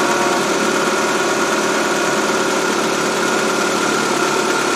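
A 2000 Ford Focus's 2.0 SOHC four-cylinder engine idling steadily, with a steady high tone running through it.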